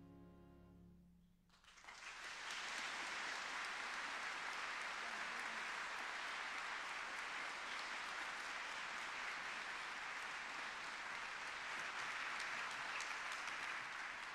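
The last held notes of a piece of music end about a second in, then a large hall audience applauds steadily.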